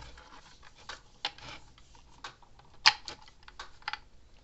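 Small clicks and taps of needle-nose pliers and fingers working a wire strap off the terminal of a fence charger's cylindrical capacitor, with the sharpest click about three seconds in.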